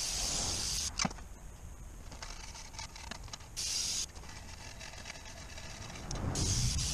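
Aerosol can spraying in three short hissing bursts, one about halfway through and one near the end, with a sharp click about a second in and light scraping and handling between, as a valve cover is cleaned by hand.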